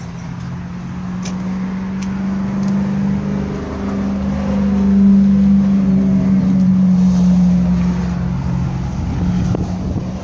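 GMC Sierra pickup's engine idling, a steady low hum that grows louder about halfway through.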